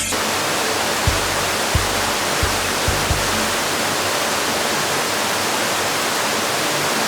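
Floodwater rushing in a steady, loud, even noise, with the low thumps of background music for the first three seconds or so.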